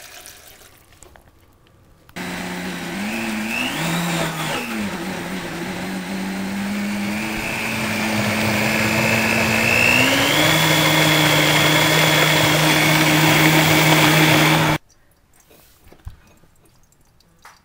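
Countertop blender motor running loud, puréeing red cabbage with water. It starts about two seconds in, its pitch wavers for a moment, climbs to a higher steady whine about ten seconds in, then cuts off abruptly near the end.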